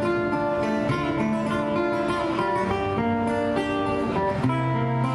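Two acoustic guitars playing an instrumental duet: a plucked melody moving over held bass notes.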